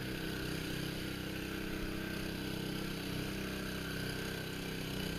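A small engine running steadily at an even speed, a low hum that does not change.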